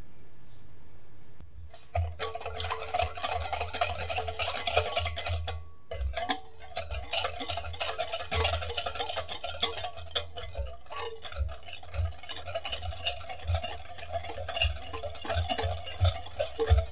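Stainless steel wire whisk beating milk, melted butter and sugar in a glass bowl: rapid clinking of the wires against the glass with liquid sloshing. It starts about two seconds in, pauses briefly about six seconds in, then carries on.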